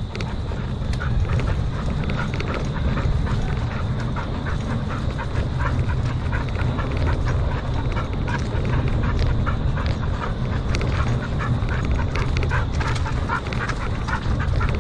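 Steady low wind and tyre rumble from a mountain bike riding a dirt trail, with a rapid string of short sounds from a dog running alongside.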